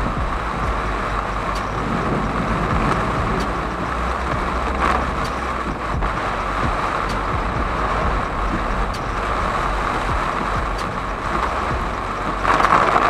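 Heavy rain falling on a moving car's roof and windscreen, heard from inside the cabin, with steady tyre hiss on the flooded road and the windscreen wipers sweeping. The noise swells louder about five seconds in and again near the end.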